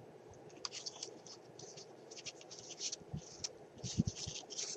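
Light, irregular rustling and scratching of paper and lace as small paper-mâché pots wrapped in vintage paper are handled, with a couple of soft knocks about three and four seconds in.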